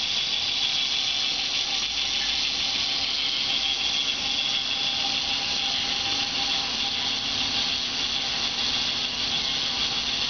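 Motor and plastic gears of a K'nex Double Ferris Wheel model running steadily as the ride spins, a continuous high-pitched mechanical noise with a faint steady tone beneath it.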